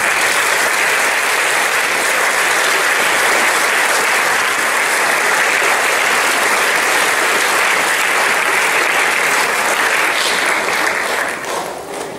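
Audience applauding steadily, beginning abruptly and dying away near the end.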